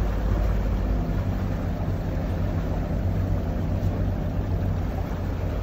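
A sailing yacht's inboard engine drives a Bruntons Autoprop feathering propeller at about 2000 RPM. It makes a steady low hum under a continuous hiss of wind and water.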